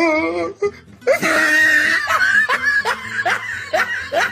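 Laughter in a run of short repeated bursts, over background music.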